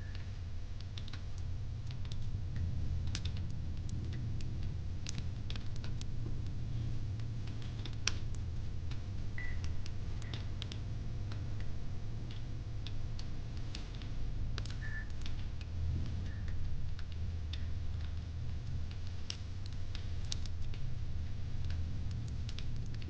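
Fire pit fire crackling: irregular sharp pops and snaps over a low, steady rumble.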